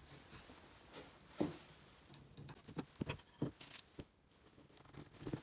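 Scattered light taps and clicks of small objects being handled, irregular and quiet, with a brief scrape about three and a half seconds in.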